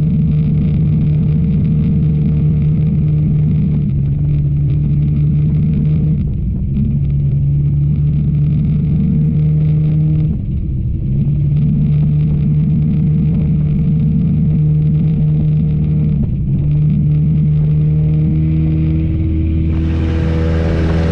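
Enduro race car's engine running hard and steadily, its pitch holding level and shifting a few times with brief dips.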